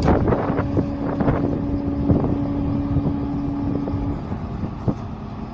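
Wind buffeting the microphone over the rumble of road traffic, with a steady hum that holds for about four seconds and then stops.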